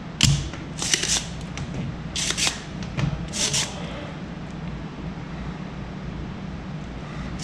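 Spring-loaded desoldering pump (solder sucker) snapping and hissing several times in the first four seconds, about five short sharp strokes, the first with a dull knock under it. It is being cocked and fired to suck molten solder off a component's pins on a washing machine control board.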